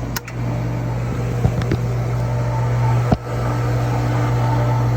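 Newly installed pool pump motor running with a steady low electric hum, a few light clicks and a short knock about three seconds in.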